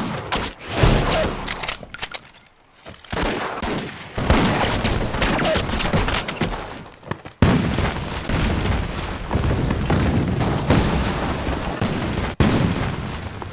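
Battle-scene gunfire: a dense fusillade of rifle and machine-gun shots mixed with explosions, with sudden loud bangs about halfway through and again near the end.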